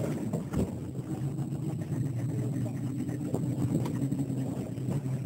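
Speedboat engine running slowly at low revs, a steady hum, with a single knock about half a second in.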